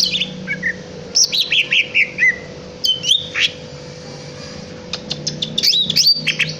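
Cucak ijo (green leafbird) singing: phrases of quick, sweeping chirps, a run of falling notes, then a whistled sweep, a short pause and another rapid burst near the end. A faint steady hum runs underneath.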